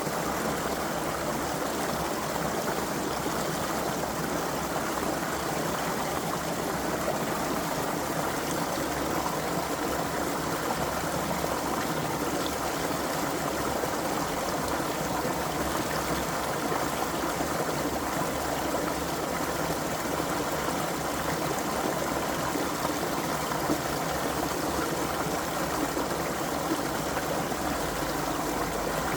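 Creek water flowing over rocks: a steady rushing and burbling of a small stream.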